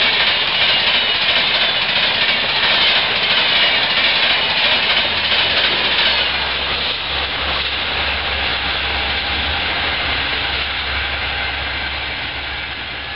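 Express train of LHB coaches passing at high speed, a loud rush of wheels on rail. About six seconds in, the luggage-brake-and-generator car at the tail goes by and its diesel generator adds a steady low hum. The sound then slowly fades as the train draws away.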